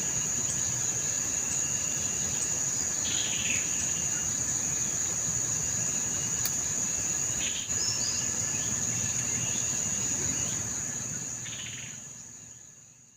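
Steady, high-pitched insect chorus, crickets or similar insects trilling without pause, with three brief chirping calls over it; the sound fades out near the end.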